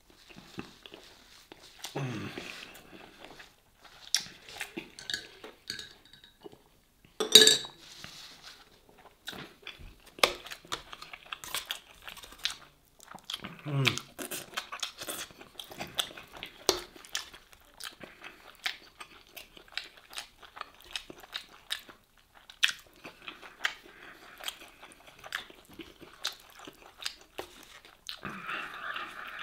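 Close-up chewing and crunching of crisp pieces from a shawarma platter in tomato sauce, with many small wet mouth clicks and a fork clicking in the foil tray. There is one louder clatter about seven seconds in, and a couple of short low hums.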